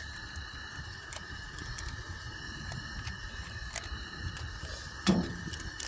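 Wood fire crackling with scattered small pops over a low rumble of wind on the microphone. One louder knock about five seconds in.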